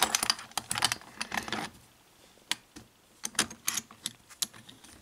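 Small metal clicks and clatter as a euro lock cylinder is handled and fitted into the jaws of a metal lock vise: a quick run of clicks in the first two seconds, then scattered single ticks.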